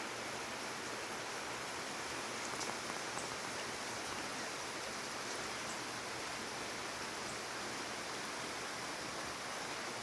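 Light rain falling steadily, an even hiss with a few faint drop ticks.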